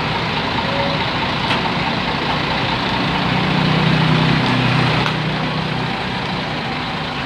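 Heavy-vehicle engine noise amid steady road traffic, with a low engine drone that swells for about three seconds in the middle as a big vehicle runs close by.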